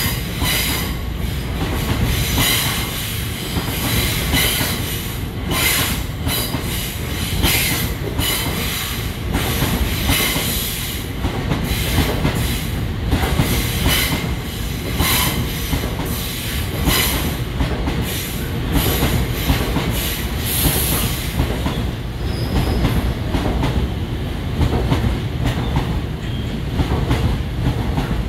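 Freight train of open box wagons rolling past close by: a steady low rumble of wheels on rail, with a clatter of wheels over joints every second or so.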